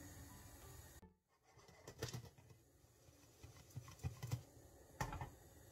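Popcorn kernels popping under the glass lid of a pot, a handful of sharp pops in small clusters: the corn is just starting to pop.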